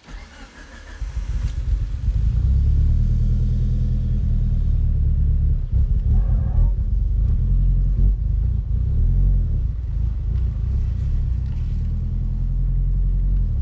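Freshly built Mitsubishi 4G63 turbocharged inline-four in an Evo VIII, heard from inside the cabin as the car drives off: a steady low rumble that swells over the first couple of seconds and then holds. The engine is being broken in.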